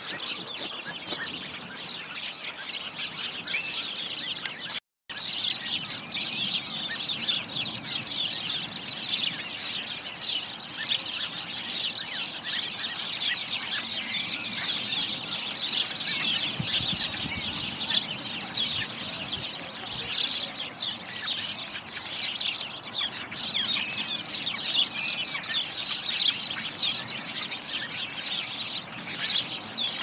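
A flock of common starlings chattering: a dense, continuous jumble of quick clicks and short whistles, with a brief break about five seconds in.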